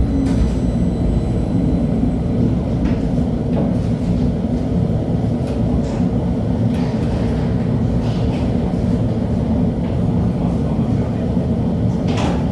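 An LHB TW2000 light-rail car running along the track: a steady low rumble of wheels on rail with a motor hum, and a few short knocks scattered through it.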